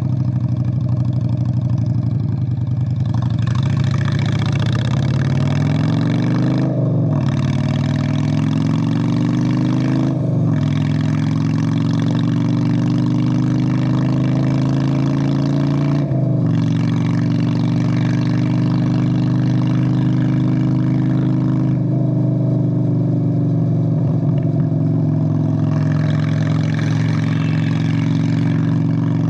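Straight-piped Honda Steed VLX 600 V-twin motorcycle exhaust pulling away. Its pitch climbs and drops sharply at each of three gear changes, then the engine runs at a fairly steady pitch while cruising.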